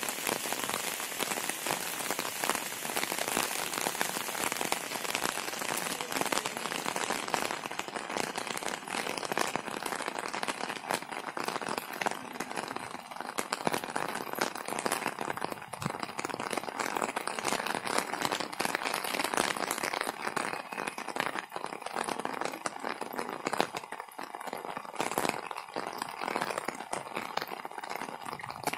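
Steady rain falling, a dense hiss with many single drops clicking close by.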